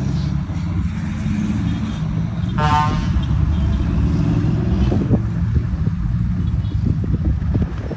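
Volvo FH trucks' diesel engines running through aftermarket exhausts with a steady, deep rumble. A truck's air horn sounds once, briefly, about two and a half seconds in.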